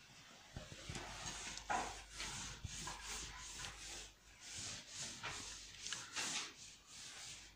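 Cloth duster wiping chalk off a chalkboard in repeated swishing strokes, about two a second, with a brief pause about four seconds in.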